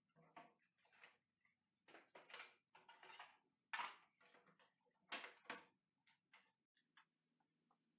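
Near silence broken by short, faint, irregular clicks and rustles, the loudest about four and five seconds in, over a faint low hum.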